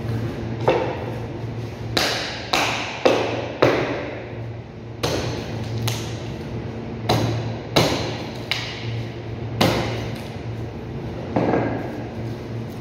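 Meat cleaver chopping into a beef forequarter: about a dozen sharp, ringing strikes at uneven intervals, some in quick pairs, over a steady low hum.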